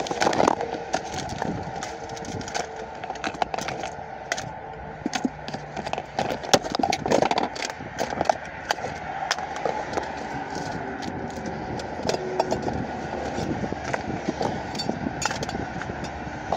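Steady interstate traffic noise picked up by a handheld cell phone's microphone, with frequent clicks and rustles from the phone being handled.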